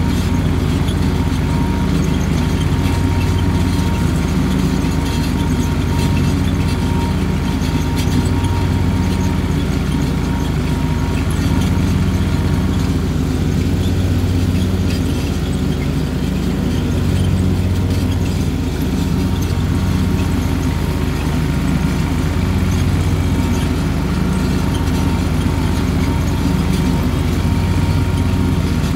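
Cub Cadet 2084 garden tractor's engine running steadily under mowing load, driving a 60-inch Haban mower deck, heard from the driver's seat. Its drone swells and eases gently every few seconds. A thin steady whine fades out midway and comes back near the end.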